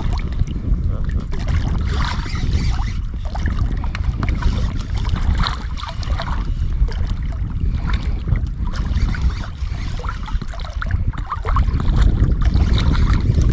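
Wind buffeting the microphone as a steady low rumble, over water lapping against an inflatable boat, with scattered small ticks.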